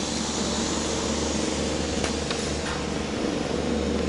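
Steady rushing noise of a bicycle riding over a steel bridge deck, from wind on the bike-mounted microphone and the rolling tyres, with a low hum underneath and a few faint clicks about two seconds in.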